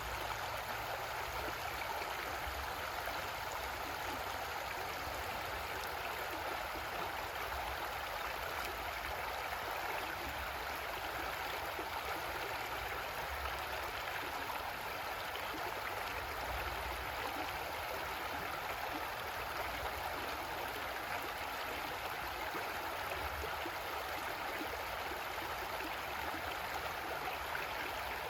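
Creek water flowing over rocks in a steady rushing babble.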